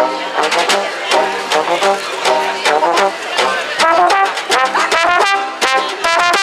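Trombone playing a lively swing melody over a snare drum and cymbal beat played with sticks.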